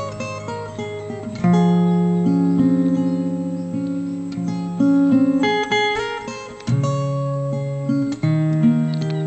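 Background music: acoustic guitar chords struck about every second or two and left to ring out.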